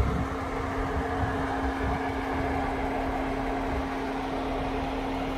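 A steady mechanical hum with one constant low tone over a background hiss, unchanging throughout.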